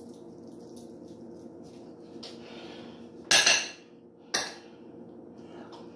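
A metal spoon scraping and clinking against a ceramic bowl of cooked rice: a louder scrape about three seconds in and a sharp clink about a second later, with faint small clicks between.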